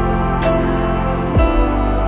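Slow, gentle instrumental music of sustained chords; a little past halfway the low notes slide down into a new chord.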